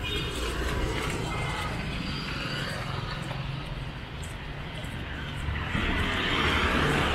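Street traffic with a steady low rumble, and one vehicle passing close and louder near the end.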